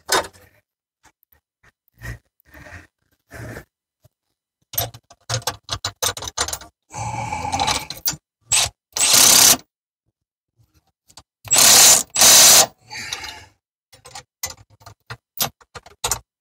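Bolts being run in with a cordless power tool in several short bursts, about a second long each, with mechanical clicking and tool clatter between them.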